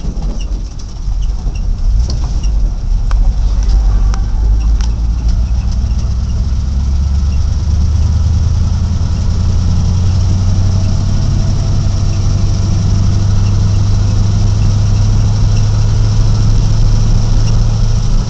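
Vehicle engine heard from inside the cab while driving. Its low hum rises in pitch over the first several seconds as it speeds up, then holds steady, with a few light clicks and rattles in the first few seconds.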